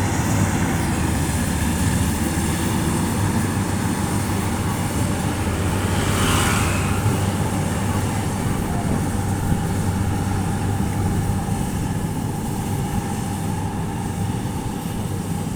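Rice combine harvester running steadily with a constant low engine hum; a brief rushing noise about six seconds in.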